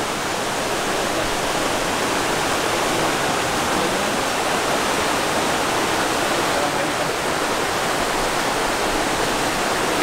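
Stream rushing over rocks through small rapids: a steady, even rush of water.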